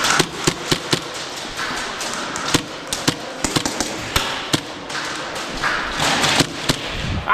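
Airsoft gunfire on the field: scattered sharp pops and cracks of shots and BB hits at an irregular pace, a few every second, over a steady rustling background.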